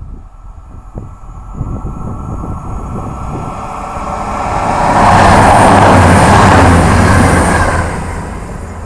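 CrossCountry Voyager diesel multiple unit running through the station at speed without stopping: a rush of wheels and underfloor engines builds to its loudest about five seconds in, with a steady low hum, then falls away as the train goes by.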